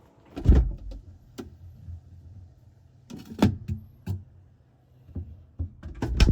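A series of knocks and thumps at irregular intervals, the loudest about half a second in and a cluster near the end, over a faint low hum.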